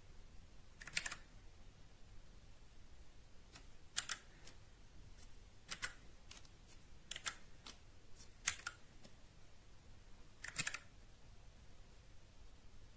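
Keys of a TMKB T63 mechanical keyboard being pressed in six short clusters of a few sharp clicks, spread out with pauses of one to three seconds between them.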